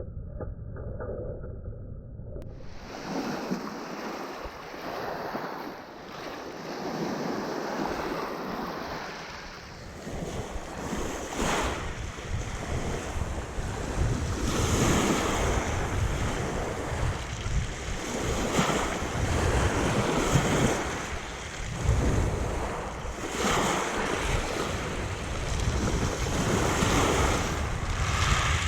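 Sea waves breaking and washing up the shore, swelling every three to four seconds, with wind buffeting the microphone. The first couple of seconds are dull and muffled before the full sound of the surf comes in.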